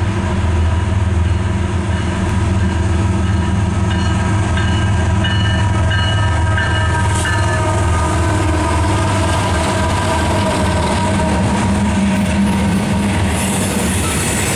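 CSX freight train's GE diesel locomotives passing close by with a loud, steady low engine drone, then the freight cars rolling by, with more wheel-on-rail noise near the end.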